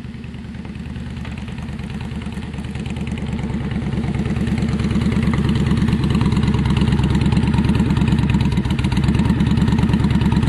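Honda VTX 1300's V-twin engine idling through its exhaust, growing louder over the first few seconds and then holding steady.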